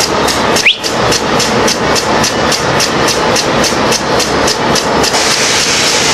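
Rapid, even tapping like a tool striking metal, about four or five strikes a second, over a loud steady hum of shop machinery; the tapping stops about five seconds in. A short rising squeak just under a second in.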